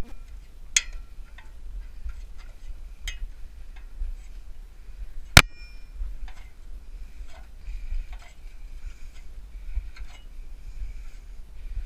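Scattered light clicks and taps, with one sharp knock about five seconds in, over a low rumble.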